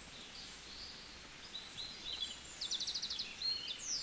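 Forest birds calling: short high chirps and whistles from several birds, with a quick trill about two-thirds of the way through, over faint outdoor background noise.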